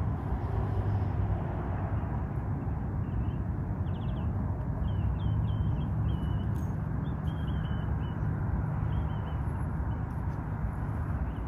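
Steady low rumble and hiss, with a small bird chirping a string of short, high calls through the middle.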